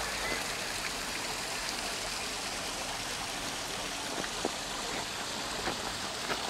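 Steady rushing water noise, with a few faint clicks.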